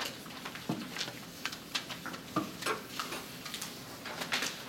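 A sheet of paper rustling and crinkling as it is folded and its creases pressed by hand, in an uneven string of short crackles.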